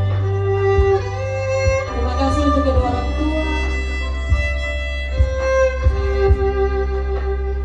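Instrumental background music: a melody of long held notes over a steady low bass, with soft beats here and there.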